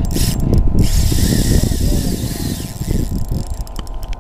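Spinning reel being worked by hand: a few clicks near the start, then a whirring of the reel's gears from about one to three seconds in, over a steady low rumble.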